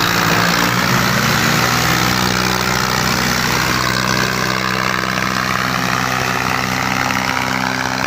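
Two tractor diesel engines, a Farmtrac 60 and a John Deere, running hard under full load as they pull against each other in a tug-of-war. The engine note holds steady at high revs.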